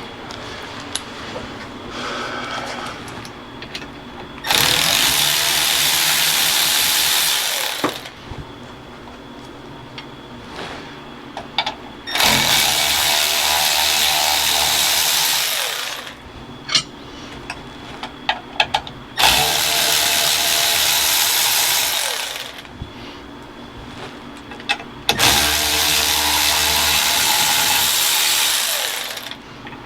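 Power tool spinning a socket on a steering-column nut, run four times in bursts of about three to four seconds, with clicks of handling in between.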